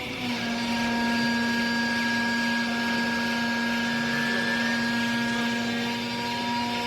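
Hydraulic baler running: a steady motor-and-pump whine over a hiss, the whine coming in just after the start.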